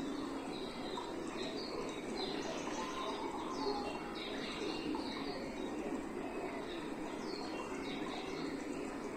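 Recorded forest soundscape: birds chirping with many short, falling calls over a steady rush of running water.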